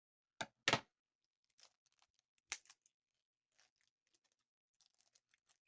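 A small package holding a crayon being opened by hand: two sharp rustling snaps within the first second and another about 2.5 s in, then faint scattered ticks and rustles.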